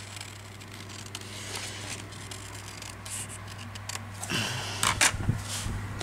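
Paper and craft materials being handled on a table: faint rustles and small taps, louder rustling about four and a half seconds in, over a steady low hum.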